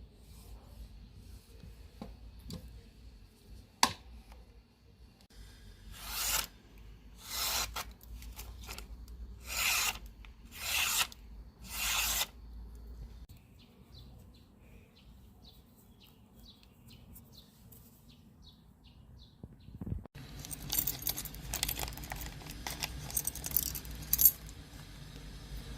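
A sharp click, then five long rasping strokes about a second apart. After a stretch of faint light ticks, a busy run of quicker scraping and small knocks starts near the end, as of something being filed or rubbed by hand.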